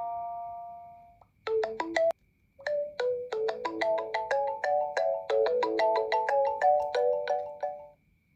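Android ringtones on an Advan Tab E1C NXT tablet being previewed one after another. The previous tone's held chord fades out in the first second, and a new tone starts and is cut off after a few notes. Then a quick melody of short notes plays for about five seconds and stops suddenly near the end.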